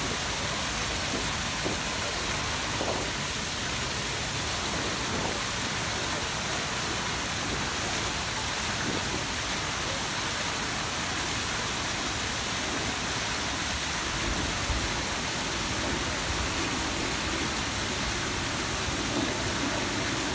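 Peterhof's Grand Cascade fountains running: the tall Samson jet and the surrounding jets and cascades splashing into the pool in a steady, even rush of falling water.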